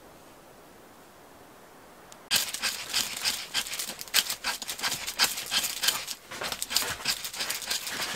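Knife blade scraping and shaving a stick of wood in quick, irregular strokes, starting about two seconds in.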